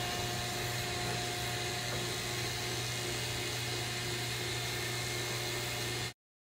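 Electric livestock clippers running with a steady buzz, shaving the hair off a heifer's hide to clear a spot for a brand. The sound cuts off suddenly near the end.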